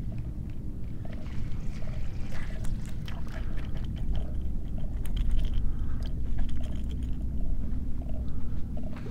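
Wind rumbling on the microphone over choppy bay water, with small irregular splashes and clicks.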